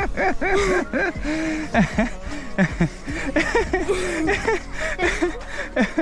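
Young children's high voices chattering and giggling.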